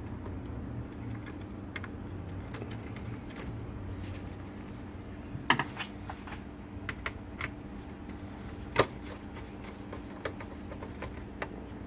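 Hard plastic pool-cleaner parts being handled and fitted together: scattered small clicks and taps, with a sharper knock about five and a half seconds in and the loudest about nine seconds in, over a steady low hum.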